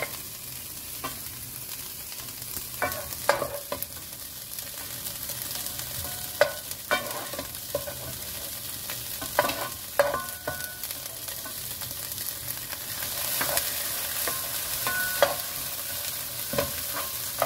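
Diced onions sizzling in hot oil in a nonstick pan, stirred with a wooden spatula that knocks and scrapes against the pan now and then. The sizzle grows a little louder near the end.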